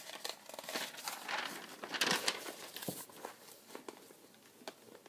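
Crinkling and rustling of something being handled, densest and loudest about two seconds in, then dying down to a few light clicks.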